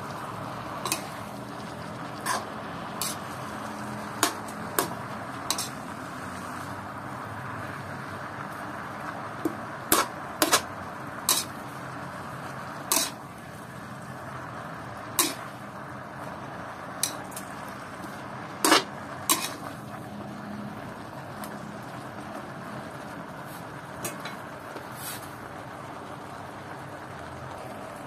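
A metal spatula scrapes and clinks against an electric wok as Chinese kale is stir-fried, giving about twenty irregular sharp knocks over a steady frying sizzle.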